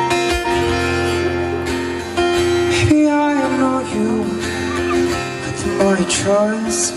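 Acoustic guitar strumming the song's intro chords; a man's singing voice comes in over it about three seconds in.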